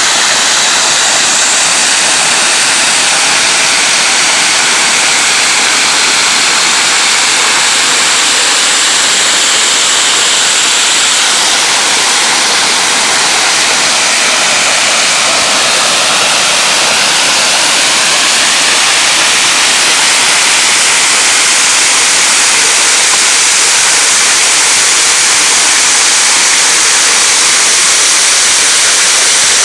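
A waterfall's falling water rushing loudly and steadily, a dense hiss with most of its weight in the upper range.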